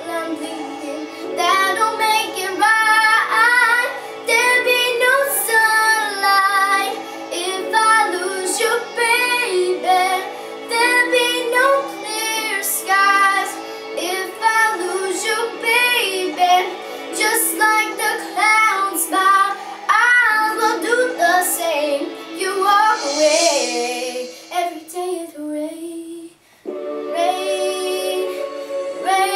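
A young girl singing a pop ballad over a backing track. Her voice drops out about 26 seconds in, leaving the accompaniment.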